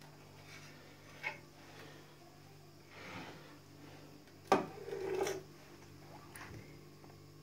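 Faint handling sounds of a knife smoothing whipped cream onto a cake: light scraping, then a sharp knock about four and a half seconds in as the knife is set down, followed by about a second of rustling. A steady low hum runs underneath.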